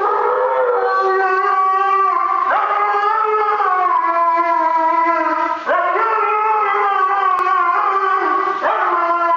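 Husky howling while being bathed: three long howls run one into the next, with a fourth starting near the end, each beginning with a quick upward slide and then slowly falling in pitch.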